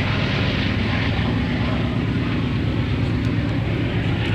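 BNSF diesel locomotives running with a steady low engine drone as they approach, with cars driving over the grade crossing in front.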